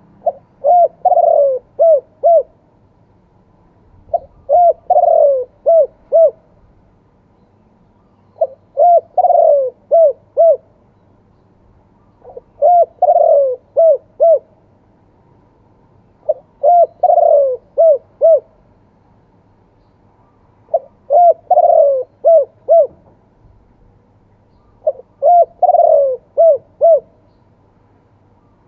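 Spotted dove cooing, repeating the same phrase seven times at about four-second intervals. Each phrase is a short opening note, a longer coo that falls in pitch, then two short clipped 'kuk' notes, the 'two-kuk' cooing style.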